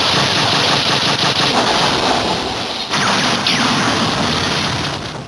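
Kamen Rider Gaim Peach Energy Lockseed finishing-attack sound effect after the 'Peach Energy Squash' call: a loud, dense crackling barrage like rapid gunfire, with falling whooshes about three seconds in, cutting off at the end.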